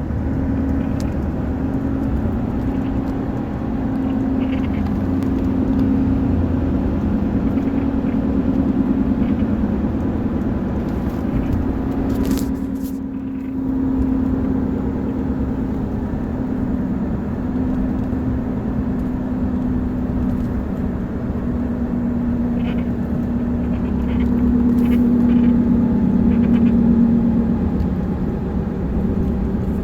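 A 2013 Ford F-150's dashboard buzz, from the instrument panel or steering column area, heard inside the cab over the truck's low running rumble. It is a steady low buzz that swells and eases a little and dips briefly about halfway.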